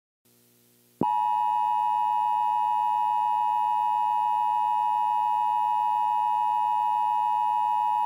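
Emergency Alert System attention tone: a single steady beep near 1 kHz that starts abruptly about a second in and holds at an even pitch and level.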